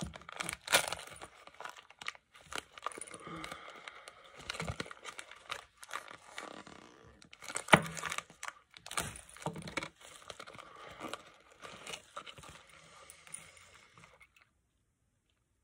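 Plastic fishing-lure packaging crinkling and tearing as it is opened by hand, with sharp snaps and clicks, the loudest a little under a second in and near eight seconds in. It cuts off suddenly about a second before the end.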